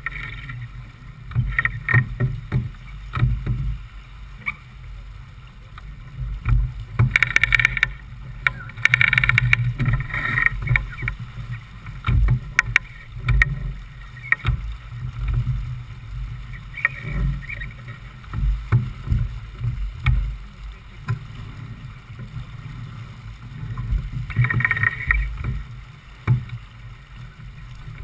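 Wind rumbling on the microphone and water rushing along the hull of a J/24 keelboat under sail, with a few short louder surges of hiss about 7, 9 and 25 seconds in.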